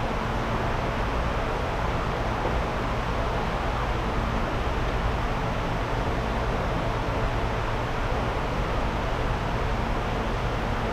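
Steady background hiss with a low, constant hum, unchanging throughout; no distinct clicks from the screwdriver stand out.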